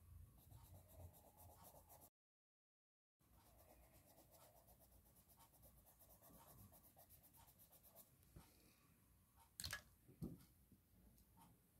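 Faint scratching of a crayon rubbed back and forth on a paper page, colouring in with quick repeated strokes. The sound drops to dead silence for about a second near the start, and two brief knocks come near the end.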